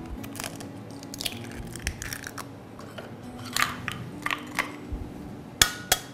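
Eggs being cracked against the rim of a glass measuring jug and broken open. There are about ten short, sharp cracks of shell on glass spread over the few seconds, the loudest two close together near the end.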